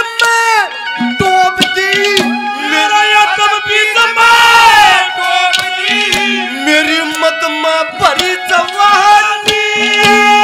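Live Haryanvi ragni folk music: a sustained, wavering melody over a steady beat of hand drums.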